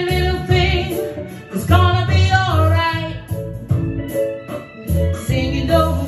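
A woman singing a reggae song into a microphone, holding and bending long notes, over a backing track with a steady pulsing bass line.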